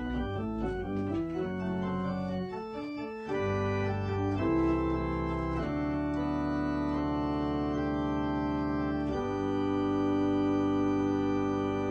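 Wyvern Sonata MK2 electronic organ being played: a run of quick short notes, then full sustained chords that change a few times, the last one held from about nine seconds in.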